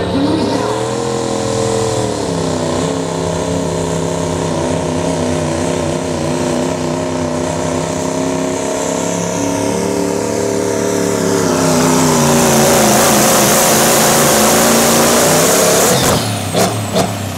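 Turbocharged diesel pickup engine pulling a sled under full load, its pitch sagging a couple of seconds in and then holding steady. A loud hiss builds over it late on. The run ends about sixteen seconds in, with a few sharp clicks.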